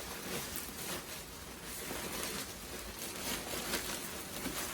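Rustling and crinkling of a clothing parcel's packaging as it is opened by hand, with a few small handling sounds.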